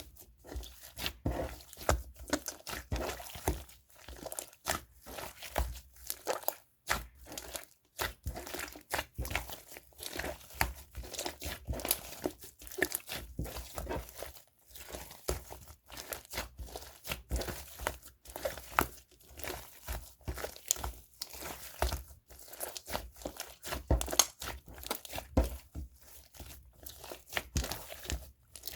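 Hands pressing, stretching and folding a macaron slime, making a dense, irregular run of crackly pops and clicks.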